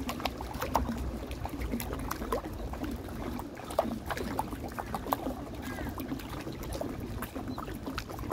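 Water spilling over the shallow stone steps of a cascading fountain into the pools below, a continuous running sound full of irregular small splashes and trickles.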